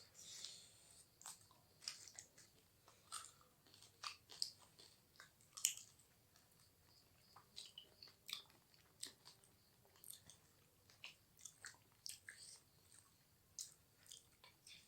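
A person chewing food with the mouth close to the microphone: faint, irregular wet clicks and smacks, a few each second.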